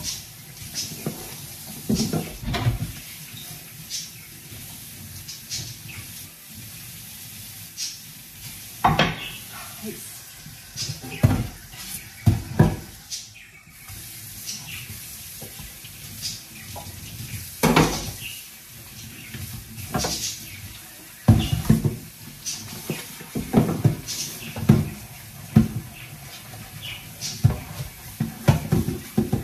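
Dishes being washed by hand in a stainless steel kitchen sink: tap water running, with frequent irregular clinks and clatters of crockery against the sink and each other.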